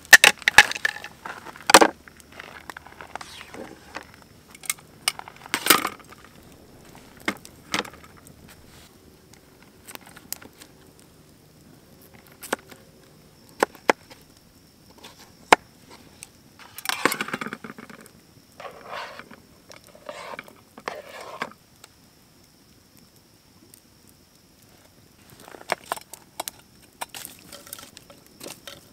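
Camp food preparation: a knife tapping sharply against a plastic cutting board while slicing potatoes, as scattered single taps, with a denser rustling clatter of the pieces going into a metal frying pan a little past halfway through.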